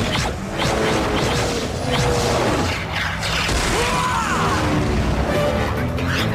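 Dramatic action music under a run of noisy blasts and crashes from cartoon weapon fire.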